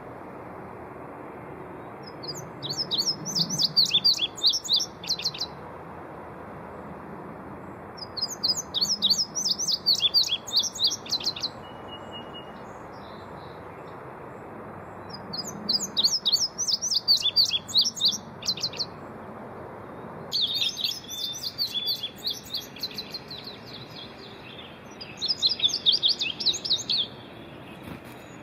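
Male indigo bunting singing: about five bouts, each about three seconds of quick, high, paired notes, with pauses between them. A steady hiss runs underneath.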